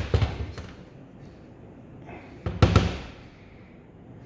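Bench vise being opened to release a part: two quick bursts of sharp metal clanks, one at the start and another about two and a half seconds in.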